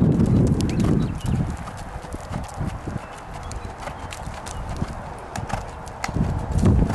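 Hoofbeats of a horse jogging under saddle, a run of soft thuds and clicks of its feet on the arena ground, louder in the first second and again near the end.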